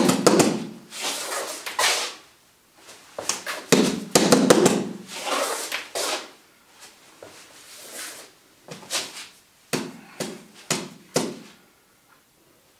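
Fists striking the padded targets of a wall-mounted Wing Chun training dummy, a cross between a wall bag and a wooden dummy. The knocks come in several runs of quick chain punches with short pauses between them.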